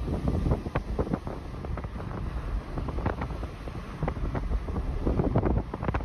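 Wind buffeting the microphone in uneven gusts over a low rumble, from filming out of a moving car's window.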